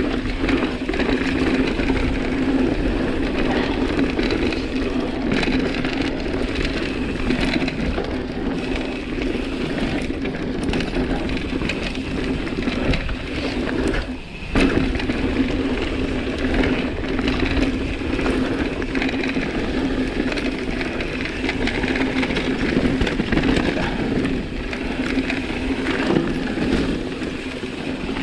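Mountain bike riding fast down a dirt trail: continuous tyre roar on loose ground with the chain and frame rattling over roots and bumps, and the rear freehub buzzing as the bike coasts. About halfway through the noise drops briefly, then comes a sharp knock.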